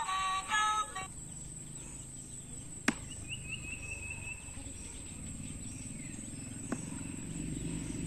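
Music with singing that stops about a second in, then quiet outdoor background with a short run of high chirps, two sharp clicks a few seconds apart, and a low rumble that grows near the end.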